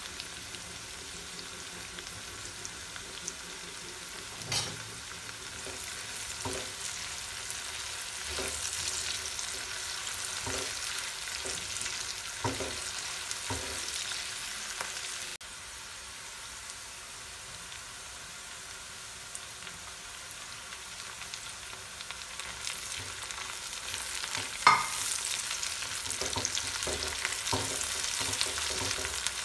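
Chopped vegetables frying in hot oil in a nonstick pan, a steady sizzle, while a spatula stirs and scrapes through them with scattered soft knocks. A single sharp knock about 25 seconds in is the loudest sound.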